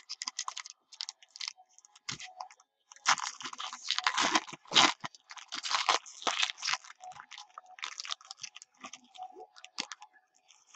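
Foil trading-card pack being torn open and its wrapper crinkled, with the cards inside sliding and clicking against each other. The crackling comes in irregular bursts, loudest a few seconds in.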